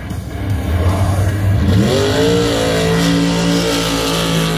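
A race buggy's engine running at the start line, then about two seconds in revving sharply up to a high, steady note as the buggy launches. A hiss of spinning tires and thrown dirt comes in with the launch.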